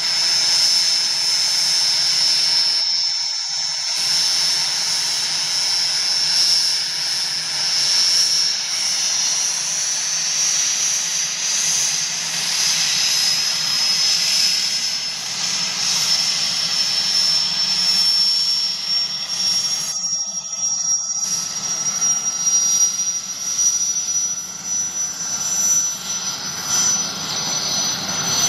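IAR 330 Puma military helicopter running on the ground before takeoff: a steady high turbine whine that slowly rises in pitch, over a low rotor hum.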